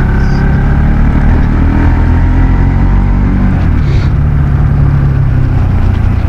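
Motorcycle or scooter engine running steadily while riding, its pitch shifting a little, over a dense low rumble.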